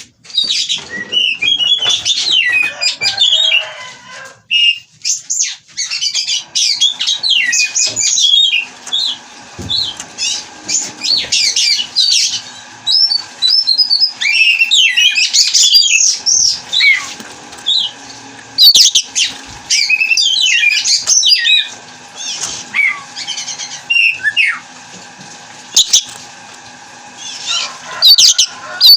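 Oriental magpie-robin (kacer) singing a rapid, varied song of whistles, slurs and harsh chatters in long phrases broken by short pauses.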